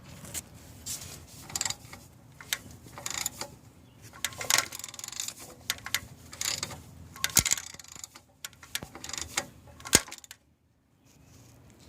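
Irregular metallic rattling and clinking from a Nissan KA24E's timing chain, the sharpest clink about ten seconds in. The rattle comes from a snapped chain guide, which lets the tensioner push the chain about.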